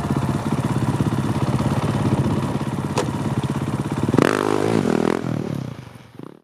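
Dirt-bike engine of a snow bike running at a steady idle, blipped up briefly about four seconds in, then fading out near the end.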